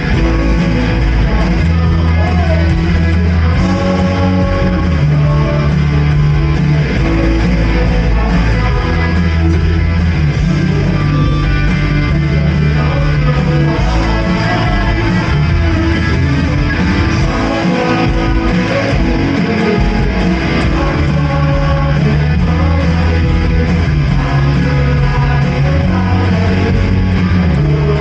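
Church praise band playing a worship song, guitar prominent over steady bass.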